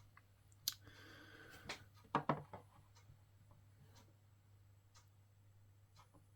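A few faint clicks and light taps, most of them between one and two and a half seconds in, over a low steady electrical hum.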